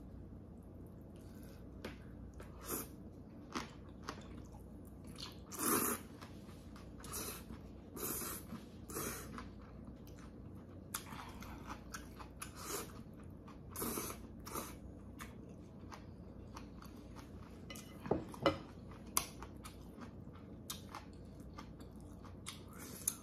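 Close-up eating sounds of Korean thin wheat noodles in anchovy broth: wet chewing and slurping in short bursts every second or two. A couple of sharp knocks come a little past three-quarters of the way through.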